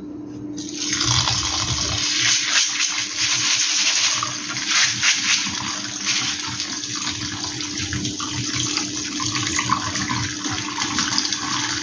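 Kitchen tap running onto white canjica corn in a plastic colander to rinse it, the water splashing through the grains and draining into a stainless-steel sink. The tap comes on about a second in and then runs steadily.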